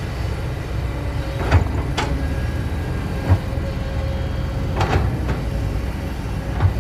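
Heavy diesel machinery running with a steady low rumble, broken by about six sharp metallic clanks spread over the few seconds.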